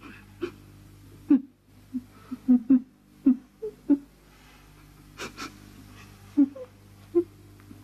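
Women sobbing and whimpering in short, broken catches of breath.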